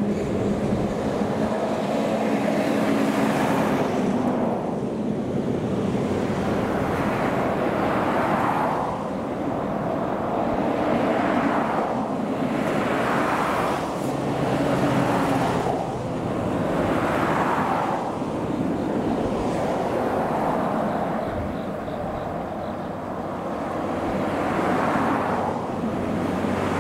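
JR West DEC700 diesel-electric railcar's engine humming as the single car pulls away down the line, the hum weakening after the first few seconds. A wash of noise swells and falls every two to three seconds throughout.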